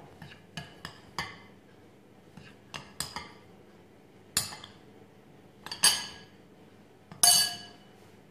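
Metal spoon clinking against a glass bowl and a small metal mesh sieve while flour is scooped and sifted: a series of sharp, irregular clinks, the last and loudest one ringing briefly.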